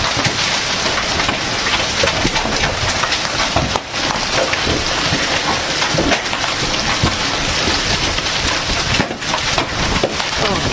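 Hailstorm with heavy rain: a dense, steady rush of rain with large hailstones striking the ground and cars in many sharp, irregular impacts throughout.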